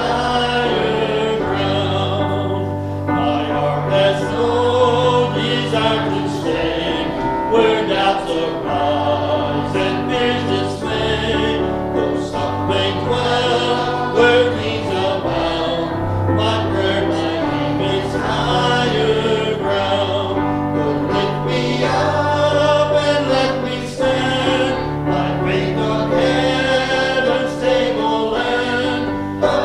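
Church congregation singing a gospel hymn together over sustained low accompanying notes.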